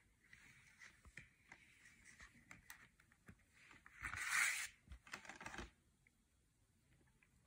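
Faint handling of a plastic Blu-ray/DVD case: scattered small clicks and taps, and a brief scraping rustle about four seconds in.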